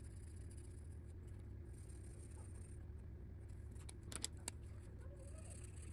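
Marker tip scratching on paper in short stretches as small circles are colored in, over a low steady hum. A few sharp clicks about four seconds in.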